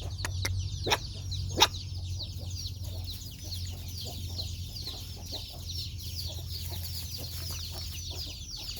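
A brood of chicks peeping together, a dense chatter of many short, high, falling chirps, over a steady low hum. Two sharp knocks land about a second and a second and a half in.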